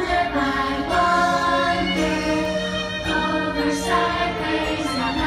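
Music with choral singing: a choir holding long, sustained notes.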